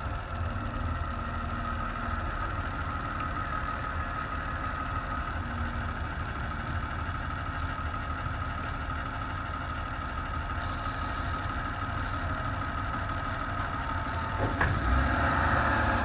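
School bus engine idling while the bus stands at the stop: a steady low rumble with a steady higher whine above it, and a click near the end.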